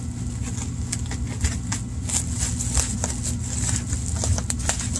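Bubble wrap crinkling and crackling as it is handled and pulled open, in many short irregular crackles, over a steady low hum.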